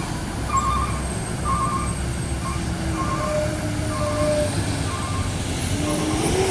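Heavy vehicle engines running, with a reversing alarm beeping about once a second.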